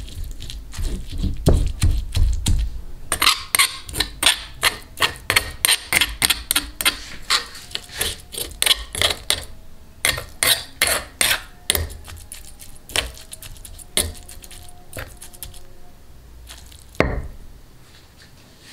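Stone pestle (ulekan) grinding and crushing fried chillies and garlic against a volcanic stone mortar (cobek) into sambal, in repeated wet, gritty strokes about two to three a second. The strokes thin out after about twelve seconds.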